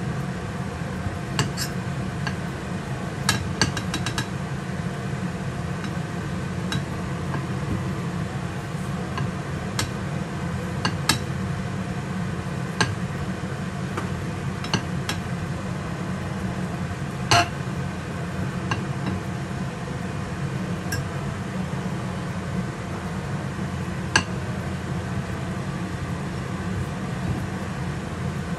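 Metal fork clinking and scraping against a ceramic plate as cooked bananas are peeled and lifted off, with sharp clinks at irregular intervals, the loudest a little past halfway. A steady low hum runs underneath.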